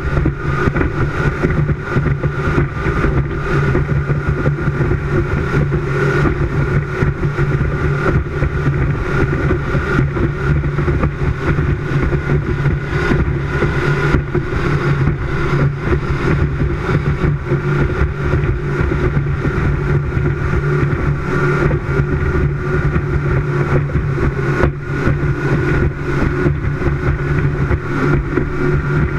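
Speedboat running fast at a steady speed: a constant engine drone under rushing wind and water noise, with no rise or fall in engine pitch.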